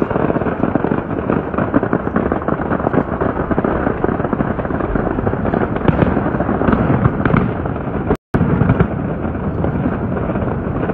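Aerial fireworks bursting and crackling in quick, continuous succession. The sound cuts out for a split second a little after eight seconds.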